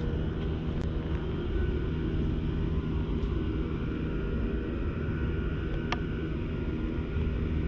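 A steady low rumble, with a sharp click about a second in and another near six seconds.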